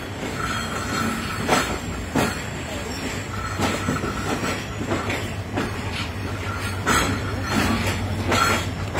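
Train wheels clacking slowly and unevenly over rail joints, with a faint wheel squeal coming and going and a steady low rumble underneath, heard from the open doorway of a coach moving at low speed.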